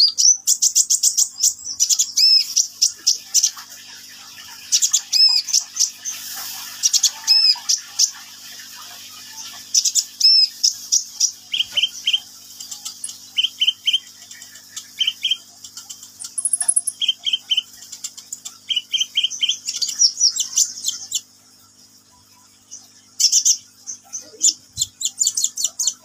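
A caged kolibri ninja (van Hasselt's sunbird) singing. It gives bursts of rapid, very high-pitched chittering trills, with a run of short lower double notes through the middle and a brief pause near the end.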